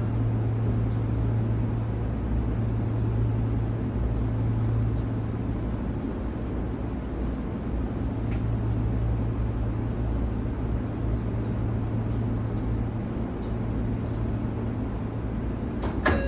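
Sotetsu 8000 series electric train standing at the platform, its onboard equipment giving a steady low hum over a rumbling background. Sharp clicks start just before the end.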